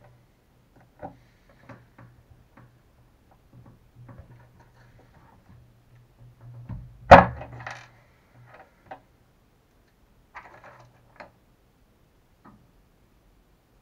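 Hand tools and small plastic RC shock parts being handled on a workbench during a shock rebuild: scattered light clicks and taps, with one sharp, much louder knock about seven seconds in.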